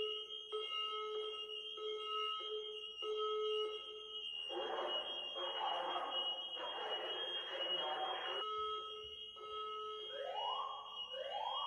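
Electronic alarm-like tones over a steady high tone: beeps pulsing about one and a half times a second, a stretch of hiss in the middle, then rising whoops repeating about once a second near the end.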